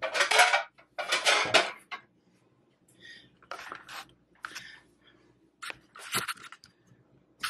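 Ceramic plates being handled and stacked: two loud clattering, scraping bursts in the first two seconds, then lighter clinks and knocks.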